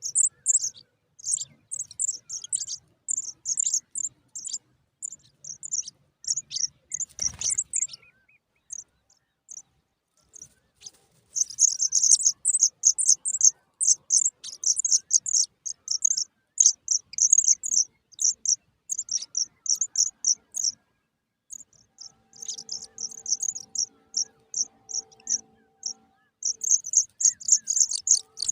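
Pipit nestlings begging to be fed: fast trains of short, high-pitched chirps, pausing for a few seconds about a third of the way through. A single dull thump about seven seconds in, and a faint low hum for a few seconds toward the end.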